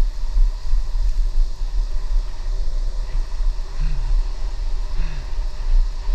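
Wind buffeting a GoPro's microphone on a moving bicycle, a steady low rumble, mixed with the hiss of tyres on wet pavement.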